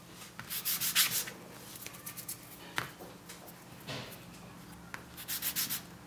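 Hands rubbing in quick back-and-forth strokes as a ball of fondant is rolled between the palms, heard as two runs of rapid hissing strokes: one about half a second in and another near the end.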